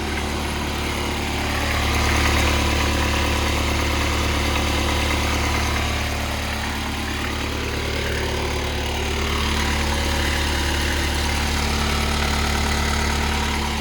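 Kubota B2710 compact tractor's three-cylinder diesel engine idling steadily, running again after being brought back to a start.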